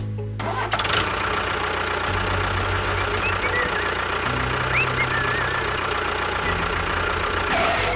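An engine running steadily, its low pitch shifting every couple of seconds.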